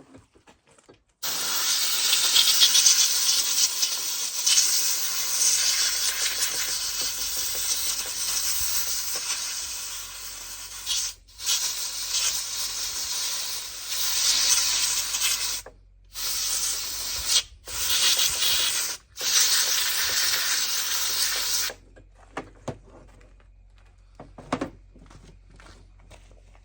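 Compressed air from an air-compressor blow gun blowing sawdust and grime out of a chainsaw. It makes a loud hiss broken by four brief pauses and stops a little after twenty seconds. A few faint light clicks follow.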